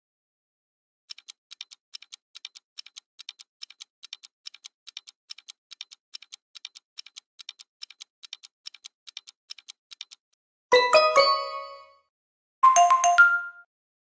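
Countdown-timer sound effect: a quick, steady clock ticking for about nine seconds, then two bright ringing chimes about two seconds apart. The chimes are the loudest sounds.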